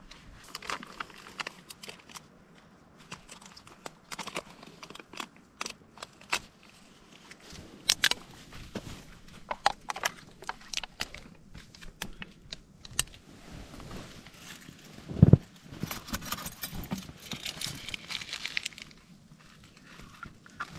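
Plastic food pots and their wrapping being handled, torn and peeled open: scattered crinkles and sharp clicks, with a denser stretch of crinkling near the end. One loud low thump about fifteen seconds in.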